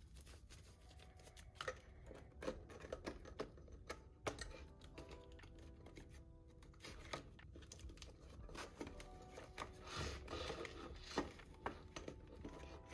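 Faint background music, with scattered soft clicks and rustles of paper bills and cash envelopes being handled.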